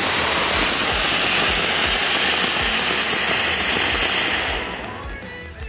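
Ground fountain firework spraying sparks with a loud, steady hiss that fades out about five seconds in.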